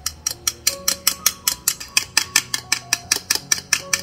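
A miniature wire whisk beating eggs in a small glass bowl, its wires clicking against the glass in a quick even rhythm of about five strikes a second.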